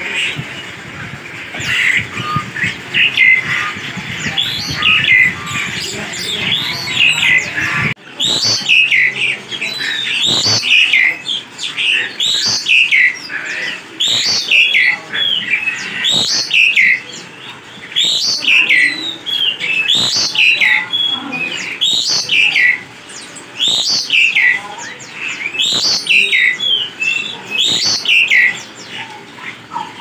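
Caged songbirds singing. Mixed chirping comes first; after several seconds one bird's loud song takes over, a short downward-sweeping whistled phrase repeated about once a second.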